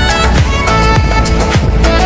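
Music with a steady beat, about two strokes a second, and a sustained melody over it.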